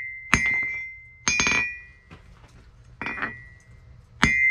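Hand hammer striking hot steel on an anvil four times, about a second apart, the third blow lighter. Each blow sets the anvil ringing really loud at a high pitch, fading within about a second.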